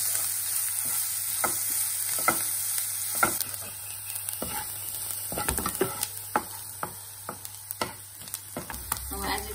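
Chopped onion and garlic sizzling in hot oil in a nonstick kadai, being sautéed until translucent, while a spoon scrapes and taps the pan as it stirs them. The sizzle is louder for the first few seconds, then eases while the stirring strokes carry on.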